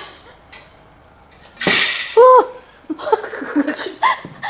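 A short harsh clatter, then a woman's brief pitched cry of pain or surprise, the loudest sound, followed by voices and laughter.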